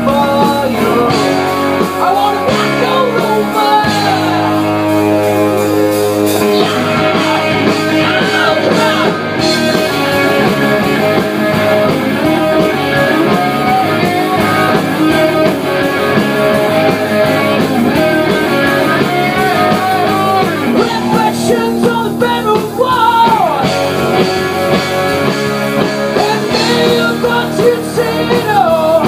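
Live rock band playing amplified: a male singer over electric guitars, bass guitar and drums.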